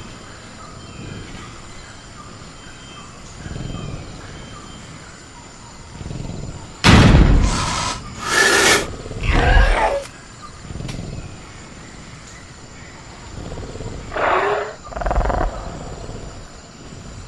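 Sound-effect velociraptor calls: three harsh roaring snarls in a quick run about seven seconds in, and two shorter ones near the end. A steady chirring of crickets and a few soft low thumps run underneath.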